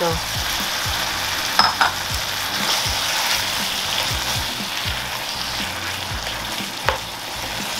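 Ground pork, onion and tomato sizzling steadily in a nonstick frying pan, just doused with soy sauce, while a spatula stirs and scrapes through it. The spatula knocks sharply on the pan twice, about two seconds in and near the end.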